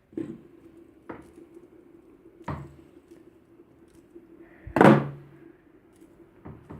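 Knocks and taps from handling fidget spinners: about five sharp knocks, the loudest about five seconds in, over a faint steady hum.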